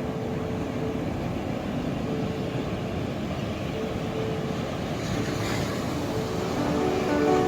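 Ocean waves washing in a steady rush, with one wave swelling and breaking about five seconds in, under faint held tones of soft background music.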